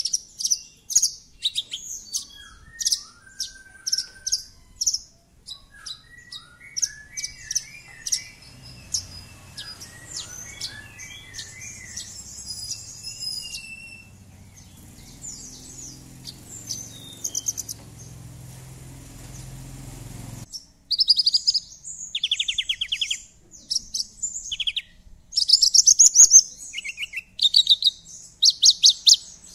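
Javan bushlark (branjangan) singing: fast strings of sharp, high chirps and short trills, with lower stepped phrases in the first half. Past the middle the song drops to a quieter stretch over a low hum, then loud chirps and rattling trills start up abruptly about two-thirds of the way through.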